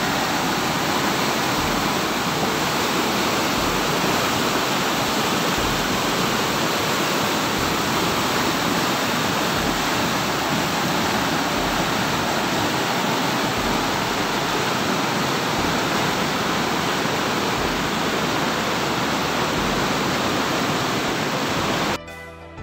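Steady, loud rushing of a swollen, muddy river in flood, with fast water churning through rapids. It cuts off suddenly near the end.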